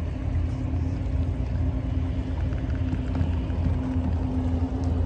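A motor's steady low rumble with a constant hum above it.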